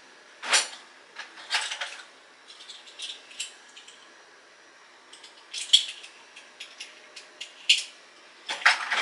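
Scattered clinks and clatters of kitchen utensils and small metal items being handled, with a quicker run of them near the end.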